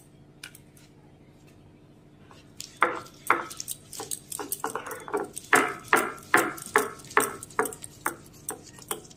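Stone roller (batta) worked back and forth on a flat grinding stone (sil), crushing peeled garlic, onion and ginger into masala paste. After a few faint clicks, regular grinding strokes start about three seconds in, about two a second.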